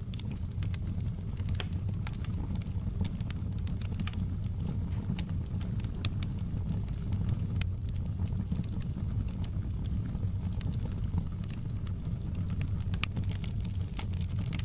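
Wood fire crackling in a fireplace: sharp, irregular pops and snaps over a steady low rumble.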